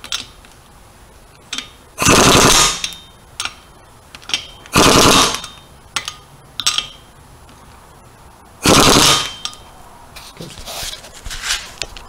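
Pneumatic impact wrench with a torque-limiting extension bar hammering the wheel lug nuts in three short rattling bursts, each under a second and a few seconds apart. It is a final tightening pass, the torque bar capping each nut just under 80 foot-pounds.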